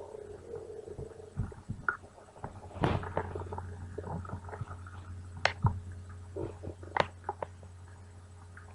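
A human stomach growling and gurgling: one drawn-out wavering gurgle in the first second or so, then a run of shorter gurgles and sharp pops.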